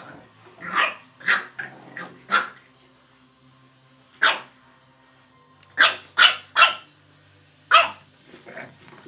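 Boston terrier puppies yapping in play: about eight short, sharp, high-pitched barks in quick clusters, with a pause in the middle.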